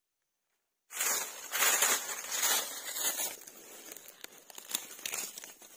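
Dry fallen leaves crackling and rustling as a hand scrapes leaf litter and sandy soil away from a mushroom in the ground. It starts suddenly about a second in, with a few sharper snaps, and grows quieter towards the end.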